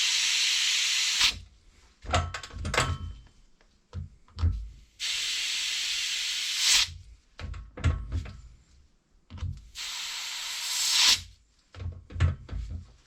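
Compressed air from a tyre inflator gun hissing into a small wheel tyre in three long bursts, with clunks between them as the chuck and gun are handled.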